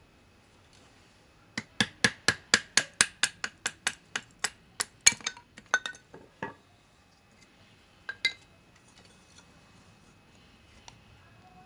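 Folding knife blade chopping into a stick of wood just over an inch thick: a quick run of sharp strikes with a slight metallic ring, about four a second, then a few more spaced strikes and a double strike near the end.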